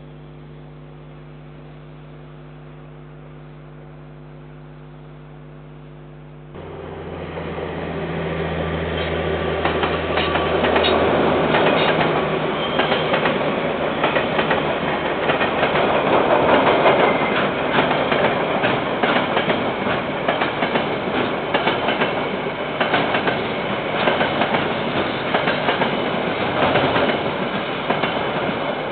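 A steady electrical hum cuts off abruptly after about six seconds. A freight train then passes close by: a low engine drone for the first few seconds, followed by wagons rolling past with continuous wheel clatter over the rails.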